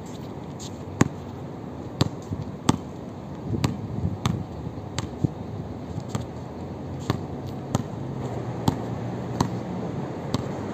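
A basketball being dribbled on a hard outdoor court, bouncing unevenly about once a second over steady background noise.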